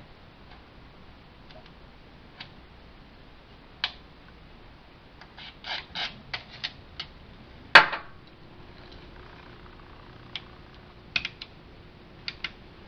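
Contact-cleaner spray can being worked into an old preamp's selector switch: irregular small clicks and taps, a couple of short hisses about six seconds in, and one loud knock about eight seconds in.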